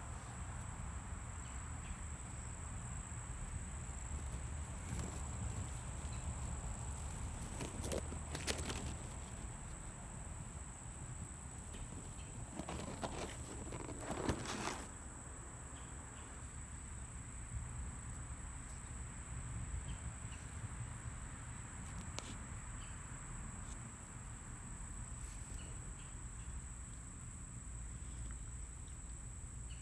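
Insects singing, a steady high-pitched drone that runs throughout. Grass rustling and footsteps come through with the phone's handling, louder around 8 seconds in and again briefly a few seconds later.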